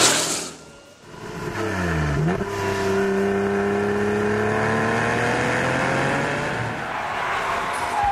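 Performance cars at speed on a racetrack. One sweeps past with a brief whoosh at the start. Then an engine's note drops in pitch, turns sharply upward and climbs slowly and steadily under acceleration.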